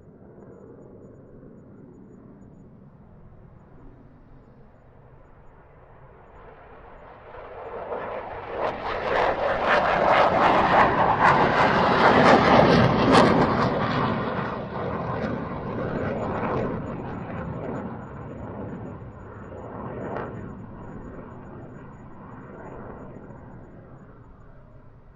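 F-16 fighter jet taking off: the jet engine's noise swells from a distant rumble to a loud, wide roar about halfway through, then slowly fades as the jet moves away.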